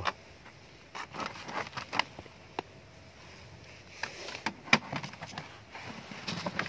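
Scattered rustling and light knocks of things being handled, with one sharp click about two-thirds of the way in.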